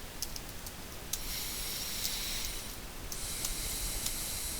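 Two bursts of high hiss of rushing air, each about one and a half to two seconds long, the second starting about three seconds in, with a few faint clicks.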